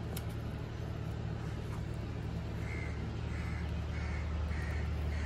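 A bird gives a run of five short calls, evenly spaced about two thirds of a second apart, starting about halfway through, over a steady low hum.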